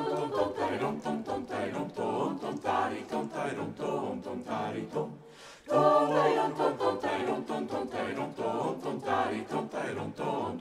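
Twelve-voice a cappella vocal ensemble singing an Italian Renaissance part song in several voice parts. The singing breaks off briefly about five seconds in, then the next phrase starts.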